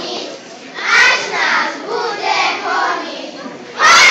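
A group of children singing together in short repeated phrases, with a louder phrase near the end.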